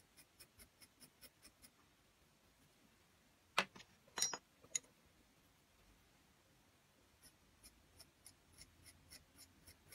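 A hand sculpting tool working grogged stoneware clay in light, even scratching strokes, about four or five a second. The strokes stop for a few seconds, and about halfway through there are two sharp clicks of a tool being handled against the stand. Then the faint strokes start again.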